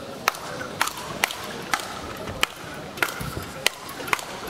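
Speedball rally: rackets strike the tethered ball in quick succession, a sharp crack about twice a second, eight hits in all.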